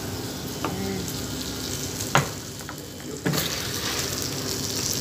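Sisig sizzling on a hot iron sizzling plate, a steady hiss that grows louder about three seconds in. A few short knocks of dishes are heard along with it.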